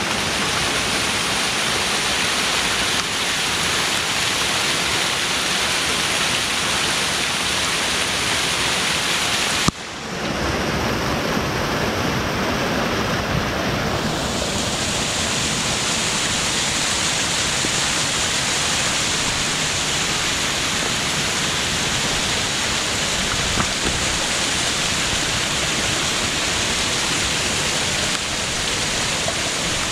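Steady rushing of a small waterfall spilling over rock ledges, mixed with rain. The sound breaks off for a moment about ten seconds in and comes back with a slightly changed tone.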